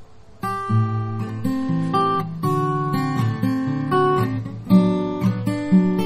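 Share Custom OO-model acoustic guitar, hand-built by luthier Kosit, played with the fingers: chords and single notes ringing out. A fading chord gives way to a short pause, and the playing picks up again about half a second in.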